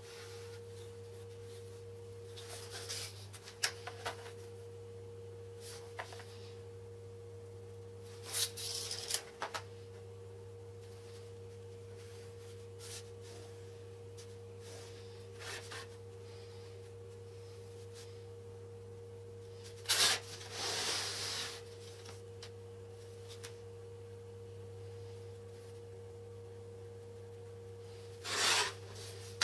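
A pen scratching along a steel ruler and the ruler rubbing on a laminate flooring board, in a few brief scrapes, over a steady low hum with a fainter higher tone above it.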